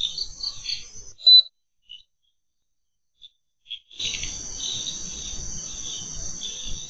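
Night chorus of crickets: a dense, high-pitched trill with pulsing chirps. About a second in, it cuts out to dead silence for roughly three seconds, broken only by one short, loud high chirp and a few faint blips, then resumes.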